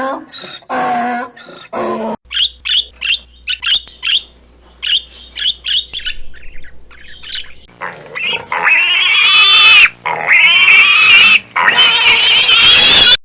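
Pig squealing: long, loud, high-pitched squeals from about eight seconds in, after a stretch of quick, short, high squeaks.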